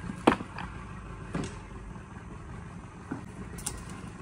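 A set line being hauled out of bankside branches from a wooden canoe: a few short sharp knocks and rustles over a steady low rumble.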